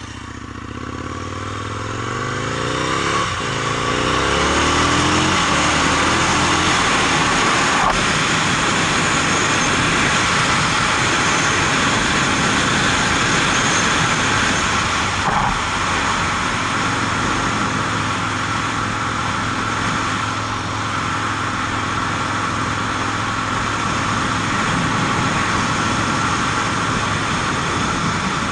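Aprilia RSV Mille R's V-twin engine accelerating, rising in pitch and growing louder over the first few seconds, then running steadily at cruising speed under heavy wind and road noise.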